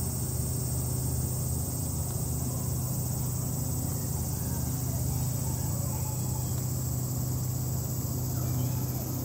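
A chorus of insects droning steadily at a high pitch without a break, over a steady low hum.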